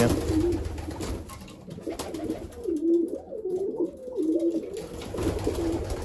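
Racing pigeons cooing: low, wavering coos repeated several times, mostly in the second half.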